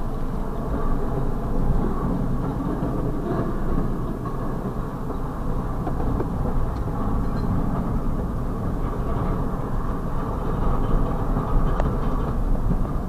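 Double-stack intermodal freight train rolling steadily past: a continuous low rumble of loaded container well cars on the rails, with a few faint clicks.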